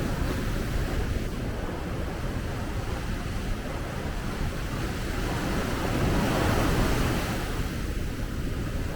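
Sea waves breaking and washing up a beach, with wind buffeting the microphone. A wave surges louder about six to seven seconds in.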